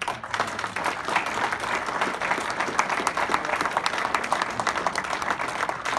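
An audience applauding: a roomful of people clapping, dense and steady.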